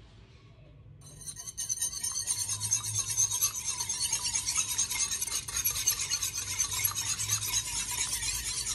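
Wire balloon whisk beating a raw egg in a ceramic bowl: a fast, steady run of clinks and scrapes of the wires against the bowl, starting about a second in.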